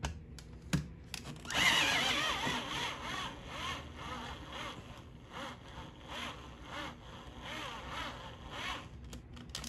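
Cordless hand drill running a thin bit into a bowling ball's resin shell, on a battery that is nearly run down. It starts about a second and a half in with a wavering whine and a regular pulsing, is loudest at first, eases off and stops near the end. A few clicks come just before it starts.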